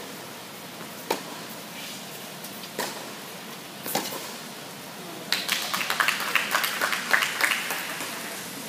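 Tennis ball being struck during a rally on an indoor court: three sharp hits a second or two apart, echoing in the hall. Then, about five seconds in, a few seconds of quick clapping.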